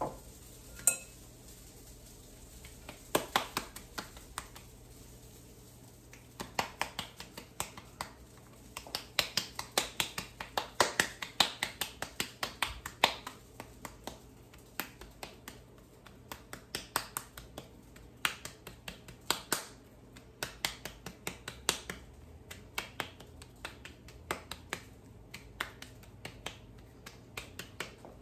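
Hands patting and pressing a ball of moist corn dough between the palms: a run of short, soft slaps, several a second, coming in uneven spells. A single ringing clink about a second in.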